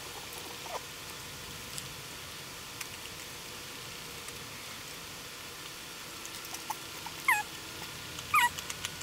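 American Bully chewing a treat, with faint scattered clicks of teeth, then two short high whimpers about a second apart near the end.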